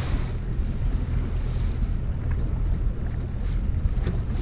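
Boat's outboard motor running at a steady low rumble, with wind buffeting the microphone.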